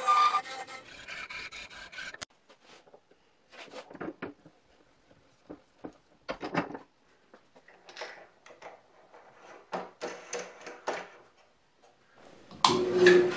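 A bandsaw cuts through a small plywood knob for about two seconds, then stops abruptly. Scattered short knocks and clicks follow as a hex bolt is pressed into the wooden knob in a bench vise. Near the end a louder steady noise starts.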